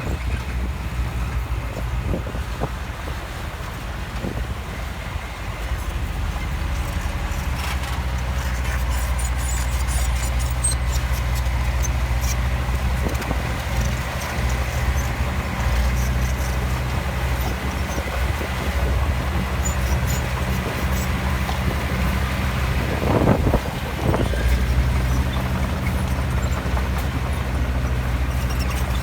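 Heavy diesel machinery engine running with a steady low drone, with scattered clanks and two louder knocks about three-quarters of the way through.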